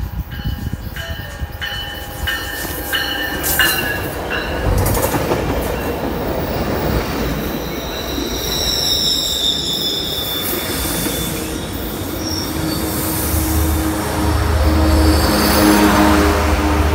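Metrolink bi-level commuter train arriving and passing close by, its wheels squealing. A bell dings repeatedly in the first few seconds. Near the end the low drone of the F125 diesel locomotive at the rear of the train grows louder.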